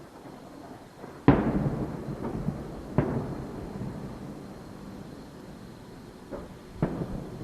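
Aerial firework shells bursting: a loud boom about a second in, another about three seconds in and one near the end, each trailing off in a long rumbling echo.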